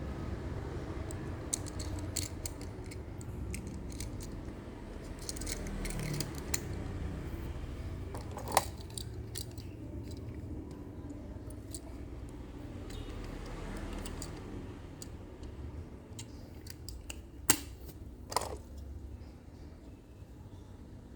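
Small clicks, taps and light knocks of miniature diecast toy trucks being handled, with two sharper knocks, over a steady low background rumble.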